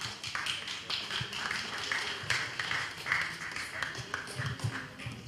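Irregular, scattered sharp claps and clicks, with no steady rhythm.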